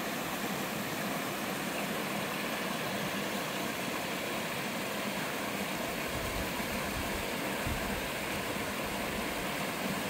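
Mountain stream sliding over rock ledges and a small two-tier cascade into a pool: a steady, even rush of running water.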